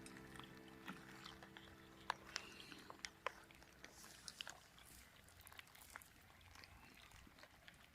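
Near silence with faint, scattered sharp clicks and ticks, while a held musical tone fades out over the first few seconds.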